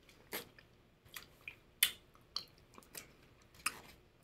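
A person chewing and smacking their lips as they eat with their fingers: a string of short, faint clicks and smacks at irregular spacing, about two a second.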